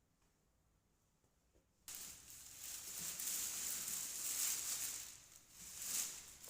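Packaging being handled: rustling and scraping that starts suddenly about two seconds in, after near silence, and swells and dips unevenly.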